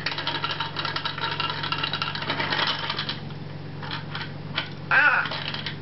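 Pump-action tin spinning top whirring with a steady hum and a fast rattling buzz that dies down after about three and a half seconds. A toddler's short high squeal about five seconds in is the loudest sound.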